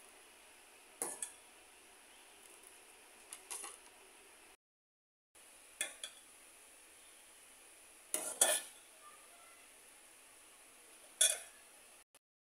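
A metal ladle clinking against a metal pot and a steel serving bowl as sabudana kheer is scooped out and served. The clinks come singly or in pairs, a few seconds apart.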